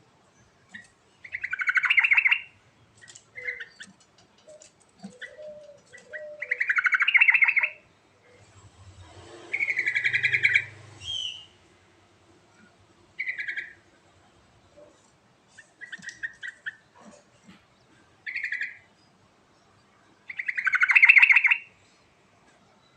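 Yellow-vented bulbul (trucukan) singing in full voice. It gives song phrases of about a second each every few seconds, with shorter notes between them.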